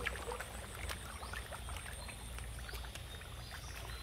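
Light rain pattering and small irregular splashes on a fish pond's surface where fish are rising to feed, over a low steady rumble.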